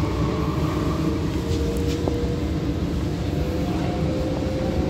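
Cabin running noise of an MTR Rotem K-Train electric multiple unit travelling at speed: a steady rumble of wheels on rail with a faint steady whine.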